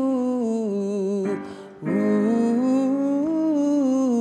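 A woman singing a sustained, rounded 'ooh' vowel as a vocal warm-up exercise, to an electronic keyboard accompaniment. She sings two phrases, each climbing and falling back through a short scale, with a brief breath between them about a second and a half in.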